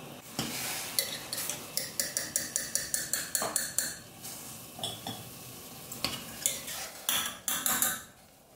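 Wire spider strainer clinking against a stainless steel pot and a ceramic bowl as blanched broccoli is lifted out of the water and tipped into the bowl: a quick run of light clinks, about four a second, for roughly three seconds, then a few louder knocks near the end.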